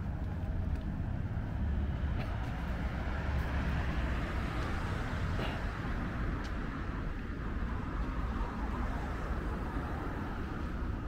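Road traffic: a steady low rumble of passing cars, with one vehicle swelling louder as it goes by about halfway through.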